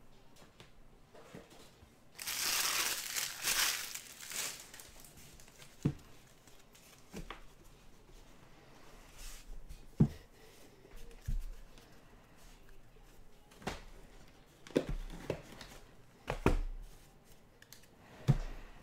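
Plastic or foil card packaging crinkling and tearing for about two seconds, then scattered light taps and knocks as trading cards and packs are handled on a table.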